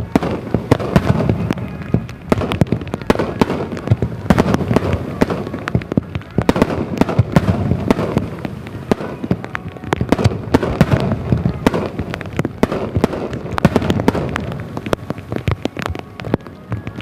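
Fireworks display: a dense barrage of aerial shell bursts and crackling, many bangs a second over a low rumble, swelling and easing several times.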